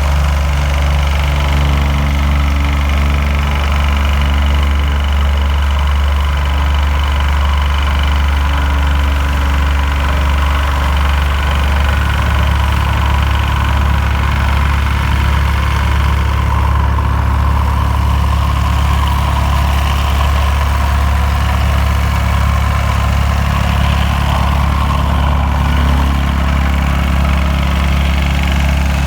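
A large engine running steadily with a deep, constant hum; its note shifts slightly about twelve seconds in.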